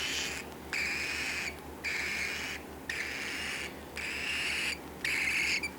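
Baby bird chick giving raspy, hissing calls, about six in a row at roughly one per second.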